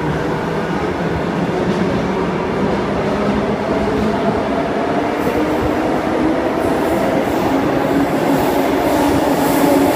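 Tangara double-deck electric train pulling out of an underground platform. It makes a steady wheel-on-rail rumble, and the whine of its traction motors rises in pitch as it gathers speed over the second half.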